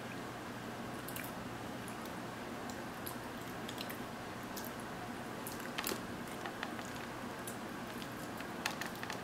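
Close-miked eating sounds: chewing and sucking tomato sauce off fingers, with scattered small wet clicks and smacks over a steady background hiss. Near the end come a few sharper clicks as a piece of crispy naan bread is torn by hand.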